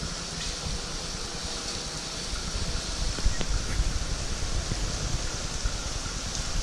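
General ambience: a steady hiss with irregular low rumbling of wind buffeting the microphone, which grows stronger about halfway through.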